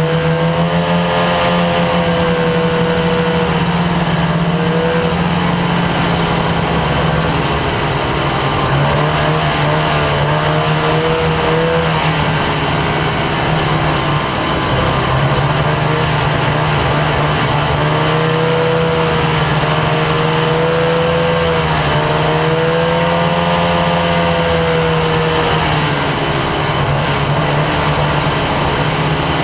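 Snowmobile engine running under way along the trail, its pitch rising and dipping with the throttle over a steady low drone and a constant hiss.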